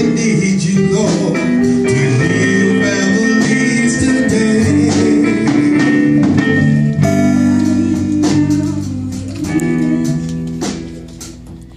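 Live band music with guitar, and a woman singing into a microphone over a PA; it grows quieter over the last second or so.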